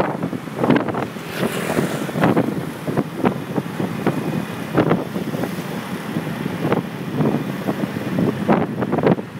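Road traffic and engine noise heard while riding in open air along a busy street, with wind buffeting the microphone in irregular gusts.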